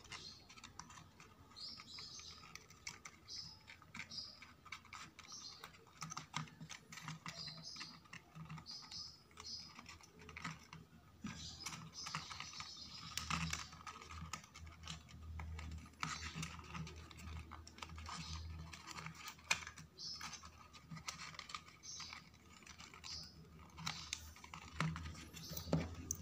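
Printed paper parts being folded and pressed by hand: irregular crinkling and rustling with many small clicks and crackles.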